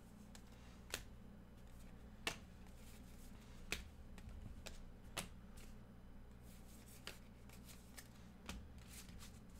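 Baseball trading cards being flipped through by hand one at a time, each card sliding off the stack with a short sharp click, about six in all at roughly one every second and a half. A faint low hum runs underneath.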